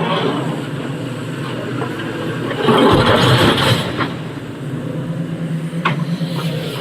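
Heavy diesel machinery running steadily, with a louder, noisier surge about three seconds in that lasts about a second.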